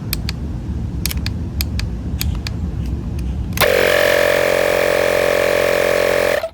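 A few light clicks over a low rumble, then the Makita DMP180 18 V cordless inflator's compressor starts up about three and a half seconds in. It runs loud and steady for about three seconds while pumping up a ball, then cuts off suddenly.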